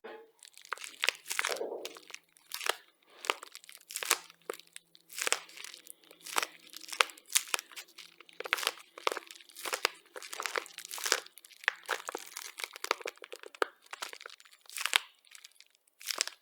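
Crisp crunching and crackling in many sharp, irregular crunches, several a second.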